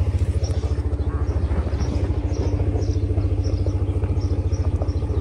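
An engine running steadily, a rapid, even low pulse with no change in speed.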